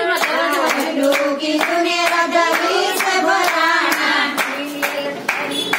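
A group of women singing a Gujarati bhajan (devotional song) together, clapping their hands in a steady rhythm.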